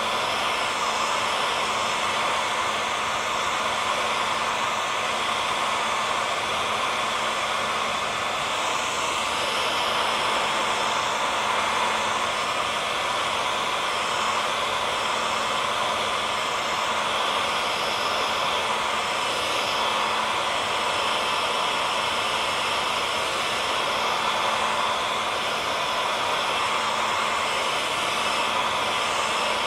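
Handheld hair dryer running steadily: a constant rush of blown air with a faint motor hum underneath.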